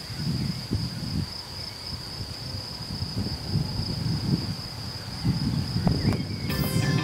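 Steady high-pitched chirring of crickets over an uneven low rumble of wind on the microphone. Near the end, a sustained tone with several pitches joins in.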